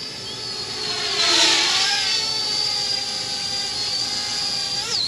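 Parrot Bebop 2 quadcopter's propellers whining in flight: a steady high whine that grows louder about a second in and shifts in pitch as the drone manoeuvres, with a quick dip and rise in pitch near the end.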